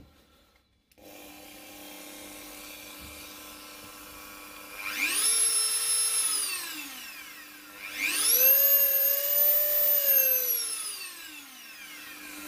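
Dremel rotary tool motor running freshly reassembled, a steady low hum at low speed. Twice it is sped up to a high whine that then winds back down, the second time higher and longer with a slow wind-down. It runs smoothly without the intermittent buzzing and jumping: the brush-holder connection fault is cured.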